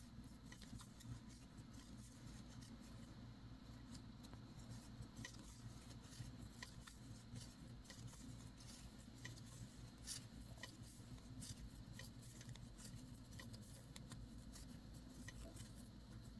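Faint, irregular light clicks and rustling as 7 mm wooden knitting needles work wool yarn in garter stitch, over a low steady room hum.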